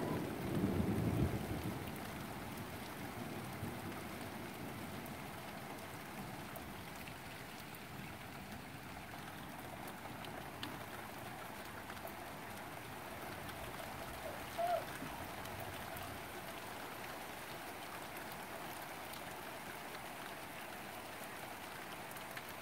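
Steady rain falling, with a low rumble of thunder fading out in the first two seconds. A single short high note cuts through the rain about fifteen seconds in.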